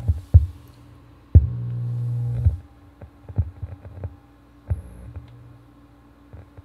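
Faulty Philips subwoofer popping and thumping, with a loud buzzing hum that starts about a second and a half in and cuts off a second later. More pops follow, one with a brief burst of hum, over a faint steady hum.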